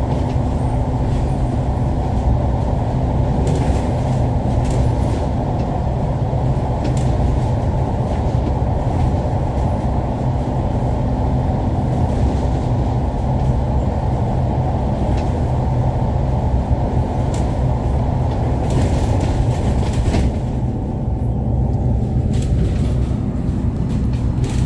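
Steady low rumble of a bus's engine and tyres, heard from inside the bus on the move through a road tunnel. The hiss above the rumble thins out near the end as the bus comes out into the open.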